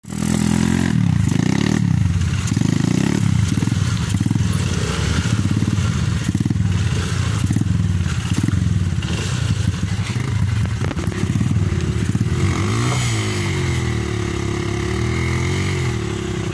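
Dirt bike engine revving in repeated surges about once a second, then a longer dip and rise in pitch near the end, as the bike tries to pull its spinning rear wheel out of deep mud.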